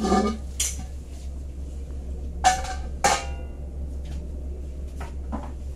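Metal lab containers being handled, with a knock at the start, two sharp ringing metallic clinks about half a second apart in the middle, and a few fainter knocks near the end, over a steady low hum.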